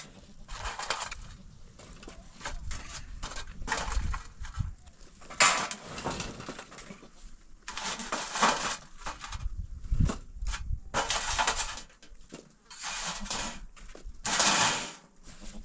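Cloth bag rustling and crinkling in repeated short bursts as it is handled and reached into.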